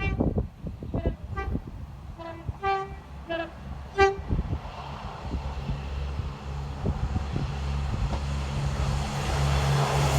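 Train horn giving a quick run of short toots that alternate between two notes over the first four seconds. After that the rush of the approaching train swells steadily, over a low steady drone.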